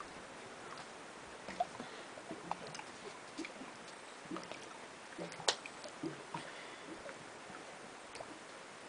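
Faint steady hiss with scattered small taps and scuffs from a boulderer's hands and climbing shoes moving on rock, one sharper tap about five and a half seconds in.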